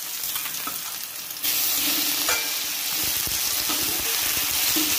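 Oil sizzling in a wok over high heat jumps louder about a second and a half in as raw chicken pieces go in with the garlic, ginger and mushrooms. A spatula then scrapes and stirs them around the pan.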